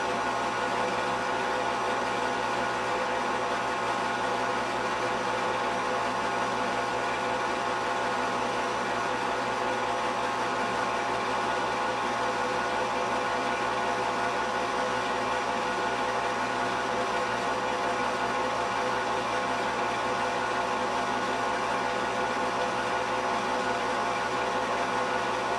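Steady mechanical whir with hiss, unchanging throughout, typical of a film projector running while silent home-movie film is transferred.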